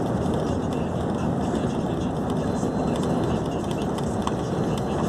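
Steady road and engine noise of a vehicle driving along, heard from inside the cab, with an even low rumble throughout.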